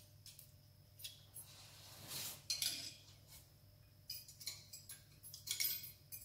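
Faint, scattered metal clinks and light knocks from steel hydraulic steering-cylinder parts and tools being handled, with a brief scrape about two seconds in.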